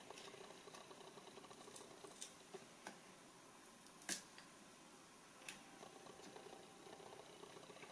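Faint handling sounds of a drone's plastic body shell, circuit boards and wiring being worked by hand: a handful of small sharp clicks, the loudest about four seconds in, over low room hum.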